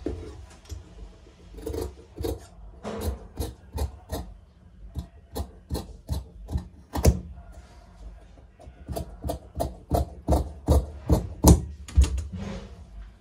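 Large tailor's shears cutting through blouse cloth: a run of short crisp snips, uneven and about two a second, loudest around the middle and in a quicker run near the end.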